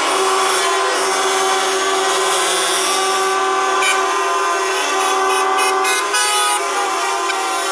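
Many truck horns blasting together in a continuous, overlapping chorus of steady tones at several different pitches.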